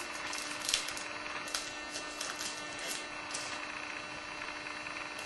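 Chrome trading cards and their pack being handled and flipped through: a run of light, crisp rustles and ticks that thins out after about three and a half seconds, over a steady low hum.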